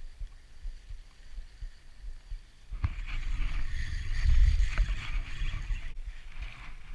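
Wind rumble and handling noise on the camera's microphone: faint at first, then from about three seconds in louder rubbing and knocking as the angler moves the rod and reel, with a few sharp clicks.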